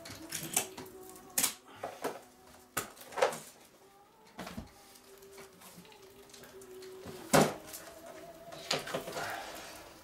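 Books and loose paper being handled at a table: pages turned, sheets shuffled, and books set down with sharp knocks and short rustles every second or so. The loudest knock comes about seven seconds in.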